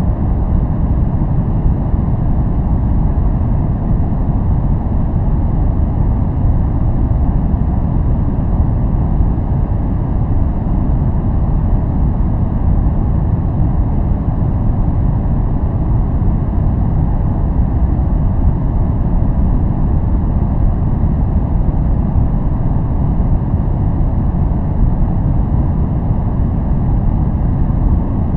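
Steady, unbroken noise track of the kind sold as white noise for focus, deep in tone, with most of its weight low and only a faint hiss above. It does not change in level or character.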